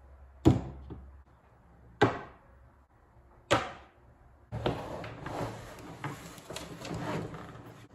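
Three hard objects, a Ka-bar knife, a fire steel and a sharpening stone, set down one after another on a cutting mat: three sharp clacks about a second and a half apart, the first the loudest. Then a roll of thick leather is unrolled and spread across the table, rustling and scraping for about three seconds.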